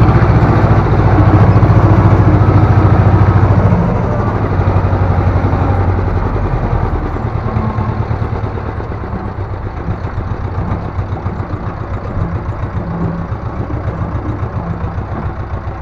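Ursus C-330 tractor's two-cylinder diesel engine running, heard from inside the cab. Loud for the first four seconds or so, then quieter, with an even pulsing beat.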